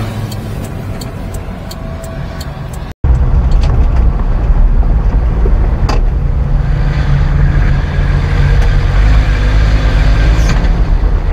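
Kei mini-truck's small engine running in the cab while driving, with a run of quick, evenly spaced ticks over the first few seconds. After a cut about three seconds in, the engine rumble is much louder and steady as the truck creeps along at low speed.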